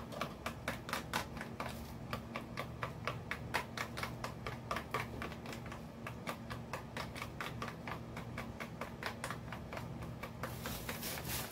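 A stirring stick clicking against a small plastic container of hair dye as the dye is mixed, in a fast run of about four light clicks a second. There is a rustle near the end.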